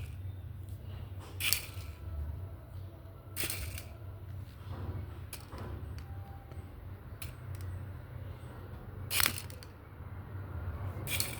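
Small toy helicopter, switched on, being handled: several sharp clicks a couple of seconds apart over a steady low hum.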